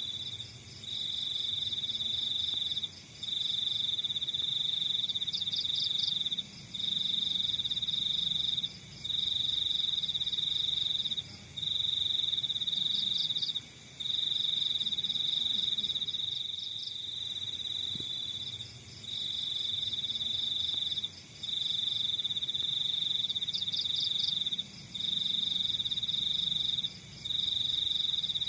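Crickets trilling: a loud high steady trill in long runs of about two seconds, each broken by a short pause, with a fainter, higher pulsing chirp from other insects over it now and then.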